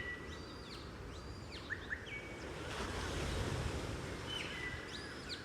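Ocean waves washing steadily, one swelling up about halfway through, with tropical birds chirping in short calls and quick sliding notes near the start, in the middle and near the end.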